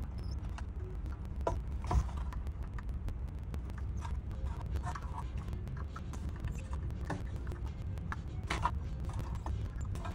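Soldering-iron tip scraping and tapping on a TV mainboard's solder joints, with small clicks and rustles as the board is handled and turned, over a steady low hum. A few louder scrapes stand out, about two seconds in and near the end.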